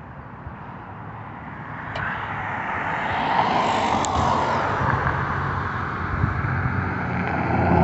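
Motor vehicle traffic on a snowy street: tyre and engine noise swells as a vehicle passes about halfway through, then eases. Near the end a heavier vehicle's low engine hum grows louder as it approaches.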